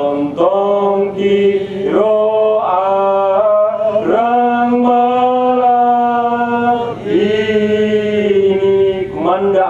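A lone man's voice chanting a Christian liturgical text through a microphone, holding each syllable as a long, slowly stepping note of two to three seconds.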